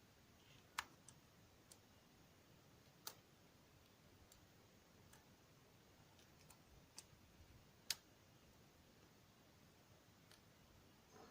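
Faint, scattered clicks of a lock pick working inside a DOM ix10 KG dimple-key euro cylinder, with sharper ticks about one, three and eight seconds in, while the pick probes for the lock's interactive element.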